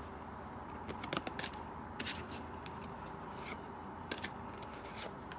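Trading cards being handled and slid over one another: a scatter of short, faint clicks and swishes, some in quick pairs.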